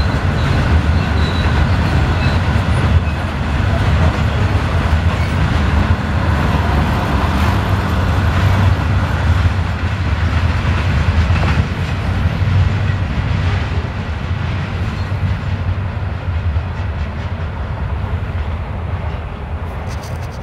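Freight train of open sand hopper cars rolling past, wheels rumbling steadily on the rails. The sound grows quieter over the last few seconds as the end of the train goes by.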